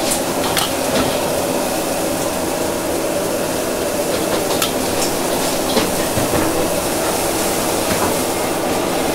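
Steady noisy ambience of a busy seafood market, a constant hiss with scattered clicks and knocks of handling and utensils.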